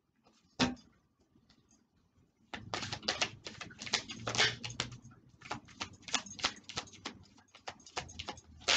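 Oracle cards being shuffled and handled: one sharp snap about half a second in, then a dense, irregular run of papery clicks and rustles from about two and a half seconds on.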